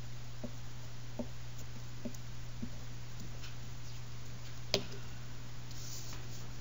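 A glue stick and a newspaper cut-out are being handled on a tabletop, giving faint soft ticks under a second apart and one sharp click about three-quarters of the way through. A steady low hum runs underneath.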